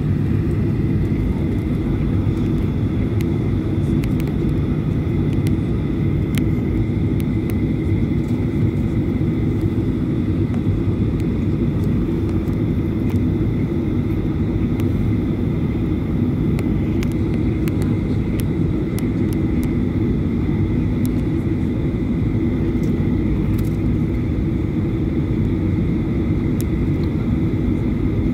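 Boeing 737 jet engines running at low taxi thrust, heard inside the cabin as a steady low rumble with a faint high whine while the airliner taxis onto the runway.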